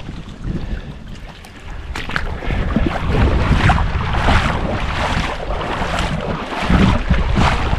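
Wind buffeting the microphone with a constant low rumble. From about two and a half seconds in, a run of even swishing sounds comes roughly every two-thirds of a second.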